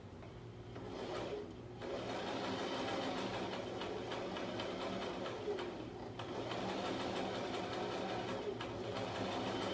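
Starter electric sewing machine running under foot-pedal control. It starts about a second in, stops briefly near 2 s, then runs on with a short slowdown around 6 s.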